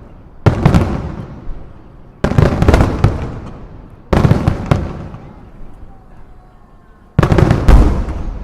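Aerial fireworks shells bursting in four volleys, each a sudden cluster of bangs and crackles that dies away over a second or two.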